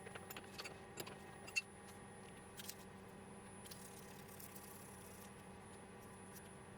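Faint scattered clicks and light rattles, most of them in the first few seconds, with one sharper click about one and a half seconds in, over a faint steady hum.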